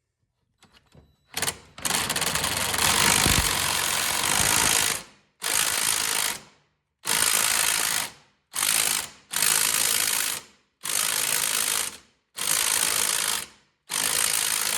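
Socket ratchet clicking as it tightens the mower's blade bolt. One long run of clicking, then about six shorter runs of about a second each, broken by brief pauses between strokes.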